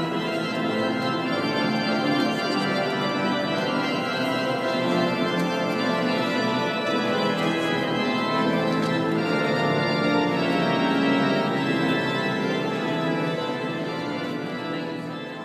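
Church pipe organ playing full, sustained chords as the wedding processional, fading out near the end.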